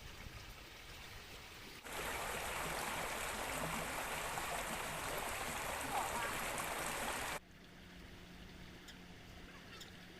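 Steady, even rushing noise that starts abruptly about two seconds in and cuts off sharply a little past seven seconds, leaving quieter background with a few faint ticks.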